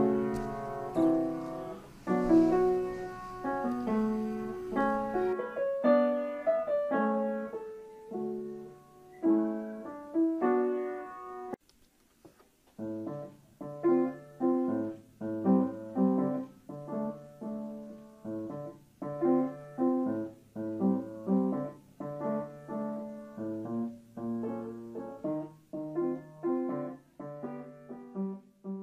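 Piano music playing over the end credits. A flowing passage of notes and chords stops about eleven seconds in, and after a brief pause a second passage starts with evenly repeated chords over low bass notes.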